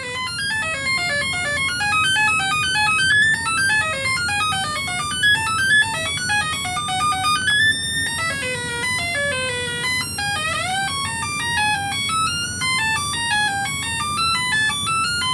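Home-built electronic tone synthesizer, the D-Lab Digi-Sizer, playing a fast stream of stepped beeping notes from its small speaker over a low steady hum. Around eight and ten seconds in, the notes give way to gliding pitch sweeps as its knobs are turned.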